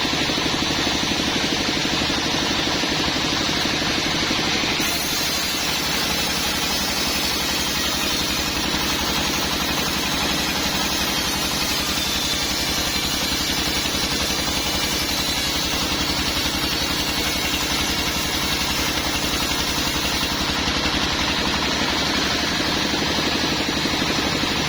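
Sawmill machinery running steadily, with a higher hiss joining from about five seconds in and dropping away near the end.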